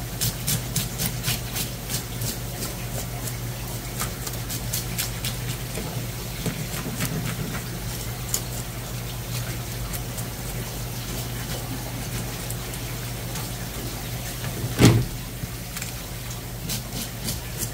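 Tap water running onto a fish while a metal fish scaler rasps off the scales in quick repeated strokes, over a steady low hum. One loud thump about fifteen seconds in.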